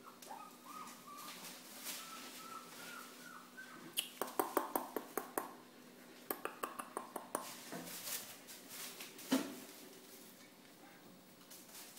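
Sheltie puppies at play: faint high squeaks over the first few seconds, then two runs of rapid crackling as a puppy tugs and shakes a plastic bag, and a couple of sharper knocks later on.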